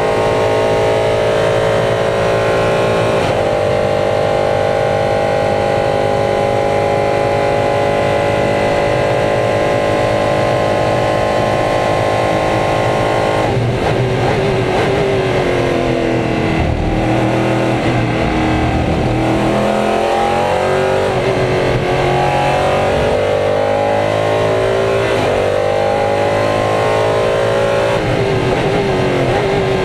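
LMP3 prototype's Nissan V8 heard from the cockpit. It is held flat out at a steady high pitch for about thirteen seconds. Then the note drops sharply as the driver lifts and downshifts, and it runs through a series of rising and falling sweeps as the car accelerates through the gears and brakes again.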